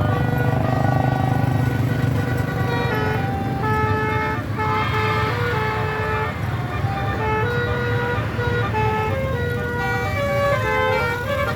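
Indonesian bus 'telolet' horn, a multi-trumpet melody horn, playing a tune of short stepped notes, often several notes at once, over the low running of a bus engine, which is louder in the first few seconds.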